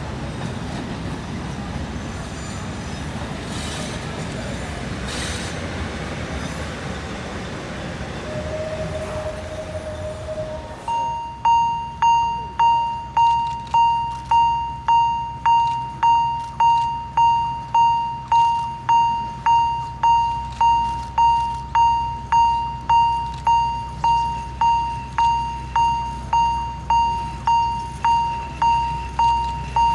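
Train running with a steady rumble and a brief squeal about nine seconds in. About eleven seconds in, a railway level-crossing warning bell starts, dinging evenly nearly twice a second over a low hum.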